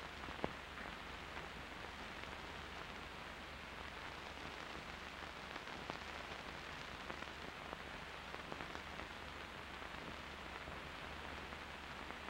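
Old film soundtrack noise: a steady hiss with a low hum and scattered crackles and pops, one sharper pop about half a second in.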